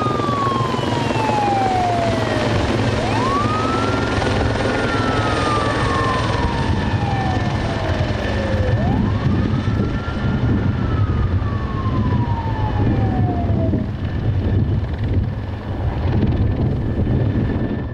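Firefighting helicopter flying overhead, its rotor and engine a steady low drone. Over it a siren wails, each cycle rising quickly and then falling slowly over several seconds, three times; the siren stops about 14 seconds in.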